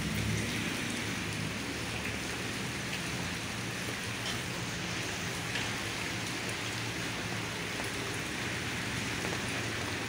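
Steady rain falling, an even hiss with a few faint drop ticks, over a low hum.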